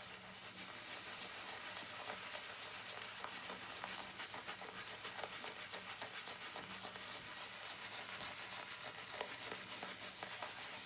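Synthetic shaving brush swirling lather onto wet skin: a faint, steady wet fizzing and crackling of rapid brush strokes, from a lather the shaver suspects is still a bit dry.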